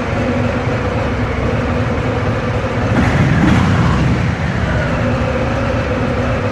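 Harley-Davidson Fat Boy's Milwaukee-Eight V-twin running on its stock exhaust, with a steady loping idle that briefly gets louder about halfway through before settling back.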